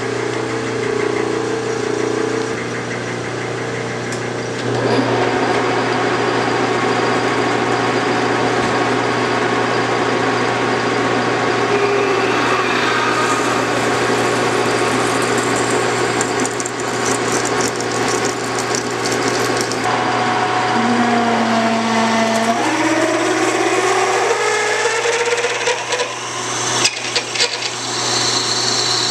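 Large metal lathe running with a steady hum as it spins an aluminium bar, first under a turning cut, then with a big twist drill in the tailstock chuck boring into the end of the bar. Near the end a tone rises in pitch over several seconds as the drill goes deeper, followed by a few sharp clicks.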